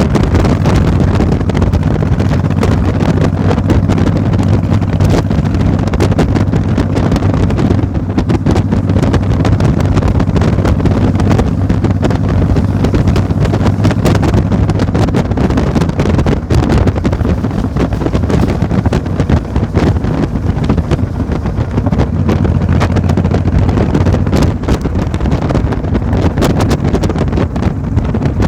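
A steady low engine hum under heavy wind buffeting on the microphone. The hum weakens about halfway through and comes back near the end.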